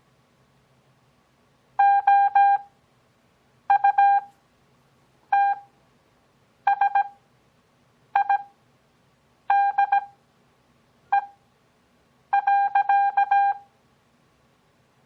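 Morse code (CW) practice tone keying out characters: each character sent quickly at 17 words per minute, then a long gap before the next (Farnsworth timing at 6 words per minute). About eight characters go by, one roughly every one and a half seconds.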